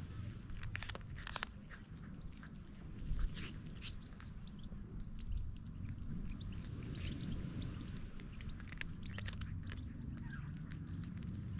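A cat chewing and crunching food, making irregular small clicks.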